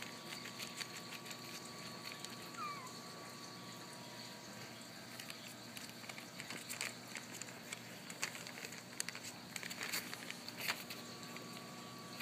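Small puppies scuffling and tumbling in a fleece bed, with many light scratches, taps and rustles, and a puppy giving a short high squeak that falls in pitch about a quarter of the way in and another brief squeak near the end.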